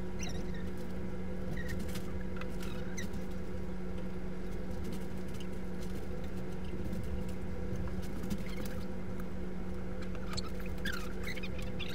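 Steady low hum with faint, scattered short high squeaks.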